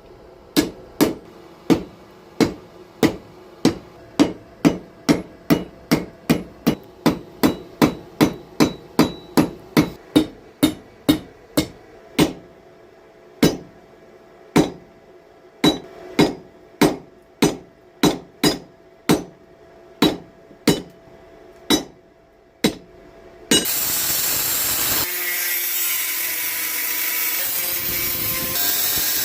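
Hand hammer striking metal on an anvil, about two blows a second with a faint ring between them, the blows becoming slower and more spaced out. About three quarters of the way in, a loud steady noise takes over.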